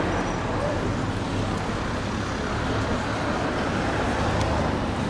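Steady vehicle and road noise, with a brief high-pitched tone in the first second.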